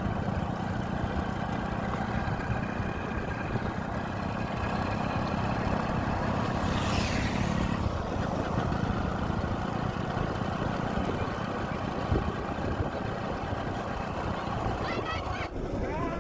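Motorcycle running at steady road speed, with wind buffeting the microphone. A brief hiss falls in pitch about seven seconds in.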